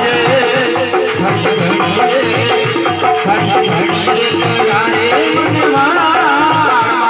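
Live Indian folk bhajan music: a steady hand-drum beat with a jingling rattle, under a melody whose pitch wavers, growing stronger near the end.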